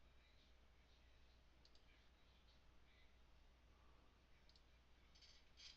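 Near silence with a few faint computer mouse clicks, the last ones close together near the end.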